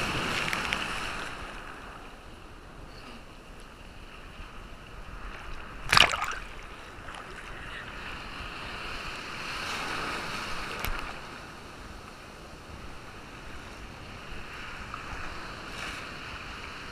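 Breaking surf and water washing around a camera held at the waterline, a steady rush that swells and fades, with one loud splash about six seconds in.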